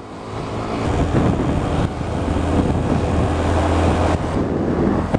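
Motorcycle engine pulling away and then running steadily, growing louder over the first second, with wind noise on the helmet-mounted microphone.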